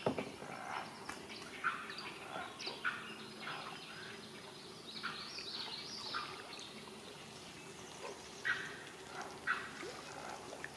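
Heron chicks calling from the nest: an irregular run of short, chattering notes, thickest in the first half, with a few louder calls scattered through.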